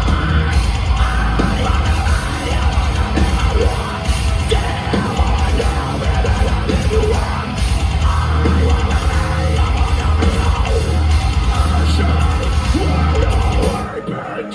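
Metalcore band playing live at full volume: heavy distorted guitars, pounding drums and bass under screamed vocals, heard from within the crowd. The music drops out in a short gap just before the end, then comes back in.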